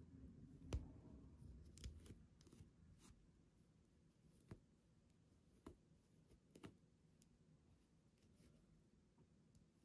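Near silence, with faint, irregular small clicks and rustles from hands and a metal crochet hook weaving a yarn end through a crocheted piece.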